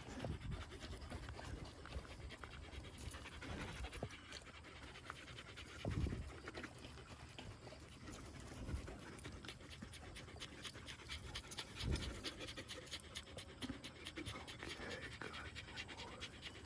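American Eskimo dog panting softly in quick, even breaths, about five a second, while being stroked. Two low thumps about six and twelve seconds in.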